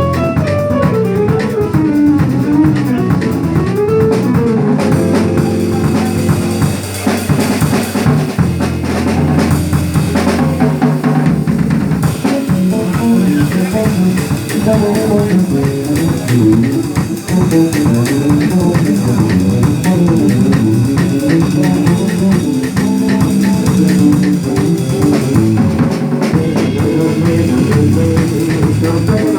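Instrumental music played on a drum kit and guitar with a bass line. A low bass note is held for several seconds near the middle.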